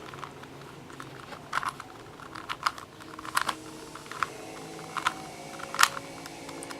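Rubik's Cube layers being turned by hand through an algorithm: a run of irregular plastic clicks and clacks, several sharper ones about a second apart in the second half.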